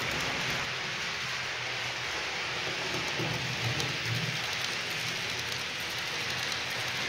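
H0-scale model freight train of tank wagons rolling along the track: a steady hiss and rattle of small metal wheels on the rails.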